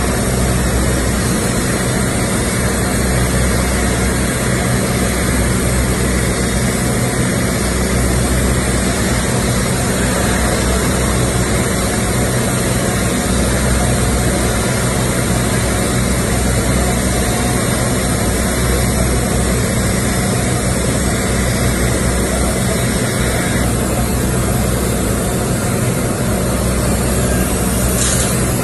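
Arc welding the hot pass on a 72-inch steel pipe joint: a steady crackling hiss from the arc, over a steady low machine hum. The arc stops near the end.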